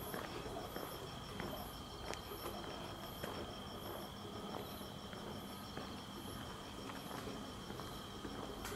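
Crickets and other insects chirping: a steady high trill with a higher chirp repeating a little under twice a second, and faint footsteps now and then.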